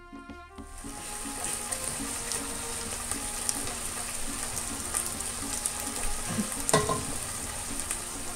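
Steady sizzling with fine crackles from food cooking on a hot hob while noodles and bok choy are stirred with a wooden spoon. About two-thirds through comes a single sharp knock with a brief ring, the loudest moment, typical of the spoon striking the metal pot.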